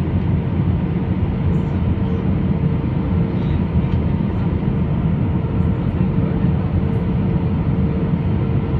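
Steady low rumble of an Airbus A320-214 airliner with its CFM56 turbofan engines running, with a faint steady hum above it.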